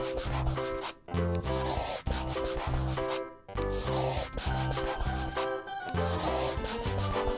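Marker-on-paper drawing sound, a rubbing scratch that goes in strokes with short pauses about a second in and around three seconds, over instrumental children's background music.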